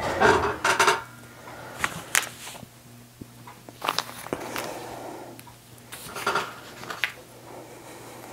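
Scattered paper rustles and light clicks as a paper pattern is handled and straight pins are pulled out of the pinned fabric and stuck into a pincushion.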